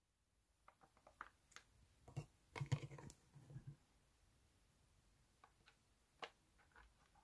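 Scattered soft clicks and taps of plastic containers being handled and soaked radish seeds being dropped into a plastic tray, busiest between about two and four seconds in.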